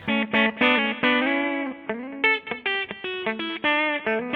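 Electric guitar with a Lace Alumitone humbucking bridge pickup split to single-coil mode, played through an amplifier. A run of picked single notes, a few held briefly. The tone is bright, with less mid-range punch than in humbucking mode.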